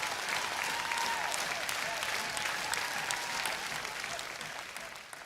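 Large audience applauding, dense clapping with cheering voices over it, fading out near the end.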